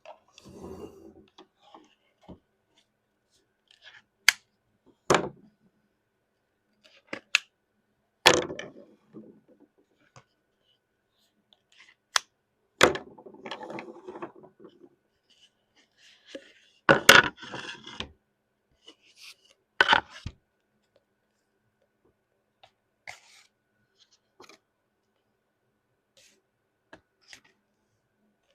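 Crunching and crackling from the gouache-painted page edge of a manga volume as the stuck pages are flexed and broken apart. It comes as scattered sharp cracks, about a dozen, some trailing into brief crackle, loudest around a third of the way in and again past the middle.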